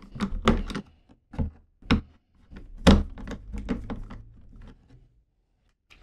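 Irregular clicks and knocks of hand work on a smart deadbolt's interior unit and its fasteners, with one louder knock about three seconds in, stopping after about five seconds.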